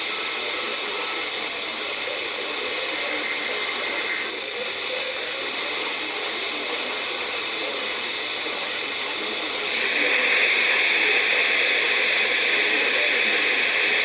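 Radio receiver static: a steady hiss with no voice in it, which gets louder and brighter about ten seconds in.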